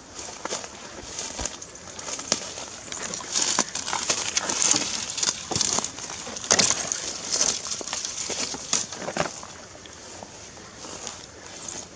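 Footsteps crunching and swishing through dry grass and leaf litter, in an uneven walking rhythm, loudest around the middle and lighter near the end.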